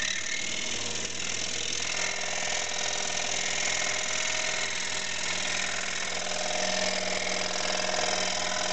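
Scroll saw running with its blade cutting slowly through plywood: a steady motor hum under an even sawing noise.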